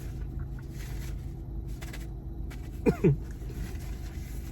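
Steady low rumble, like a vehicle idling, with two short falling yelp-like sounds in quick succession about three seconds in.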